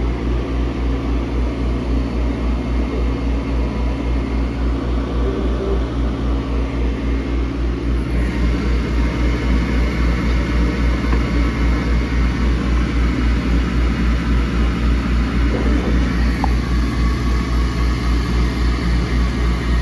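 Boss Laser CO2 laser cutter running a cutting job: a steady mechanical drone with an even low pulsing hum, from its exhaust and air-assist equipment. A faint high whine joins about eight seconds in.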